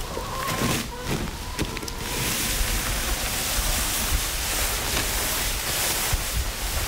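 Dry autumn leaves rustling as they pour out of an upended paper leaf bag onto the ground, a steady crackly rush that starts about two seconds in after a few handling knocks.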